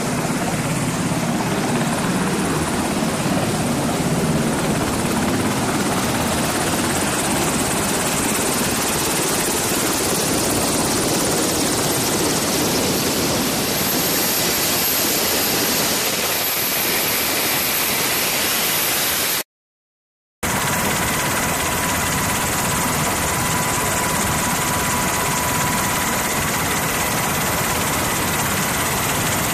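Helicopter turbine engines and rotor running, a loud steady drone. It cuts out completely for about a second near two-thirds of the way through, then resumes with a steady high whine over the noise.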